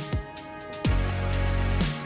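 Background music with a drum beat and deep bass notes that slide steeply down in pitch, one of them held for about a second.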